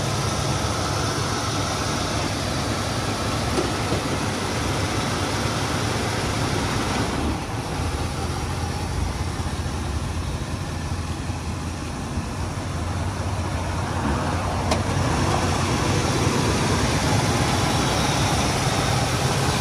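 1967 Oldsmobile Ninety-Eight's V8 engine running at idle as the car is slowly backed up. The sound softens about seven seconds in and grows louder again over the last several seconds.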